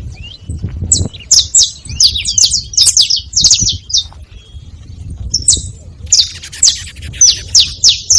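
Saffron finch (canário-da-terra) calling in quick runs of sharp, high, downward-sweeping chirps, with a short lull about four seconds in before the chirping picks up again.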